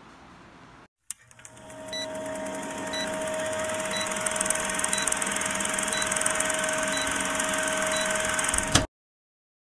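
Film-leader countdown sound effect: a steady projector-like whirr and hiss with a short high beep about once a second, cutting off abruptly near the end.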